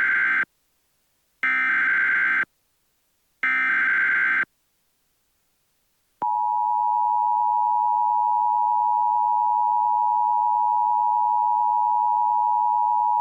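Emergency Alert System activation: three harsh digital data bursts of the SAME header, about a second each with short gaps, then after a pause of almost two seconds the steady two-tone EAS attention signal starts and holds, heralding a National Weather Service flash flood warning.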